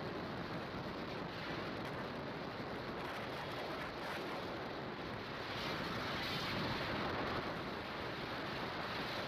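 Wind rushing over the microphone of a TVS Raider 125 motorcycle riding at road speed, a steady noise that grows a little louder about six seconds in.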